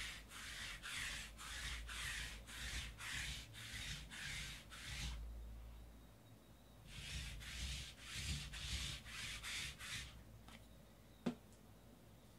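Sticky lint roller rolled back and forth across the table mat, a rasping stroke about three times a second, stopping for a couple of seconds halfway and then starting again. A single sharp click near the end.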